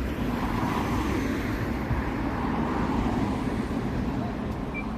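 Steady low rumble of vehicle noise, swelling slightly in the middle.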